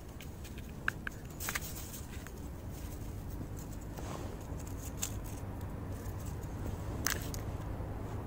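Faint scattered clicks and rustles of handling as the thin sticks of small whistling rockets are pushed into snow among dry reeds, over a low steady rumble.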